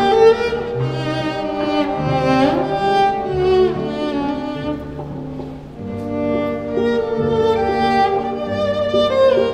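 Cello bowed in slow, sustained notes, with several notes sounding at once, dipping in loudness about five to six seconds in.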